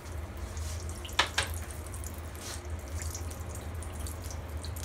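Pea-stuffed kochuris deep-frying in oil in a kadai over low heat: a steady sizzle with small crackles and pops, and two sharp clicks a little over a second in.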